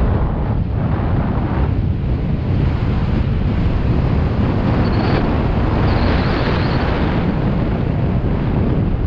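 Wind buffeting a helmet camera's microphone during a fast mountain-bike descent, with the tyres rolling over loose dirt; the hiss grows brighter for a couple of seconds around the middle.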